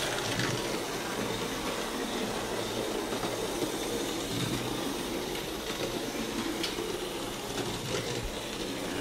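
Steady rushing noise with a few faint clicks.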